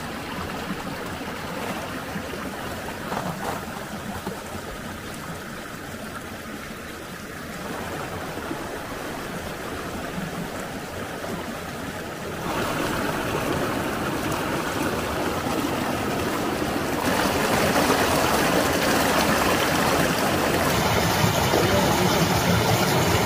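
Shallow mountain stream flowing and trickling between icy, snow-covered rocks, a steady rush of water. It grows louder in two steps, about halfway through and again about three quarters of the way in, ending on a small cascade spilling through ice.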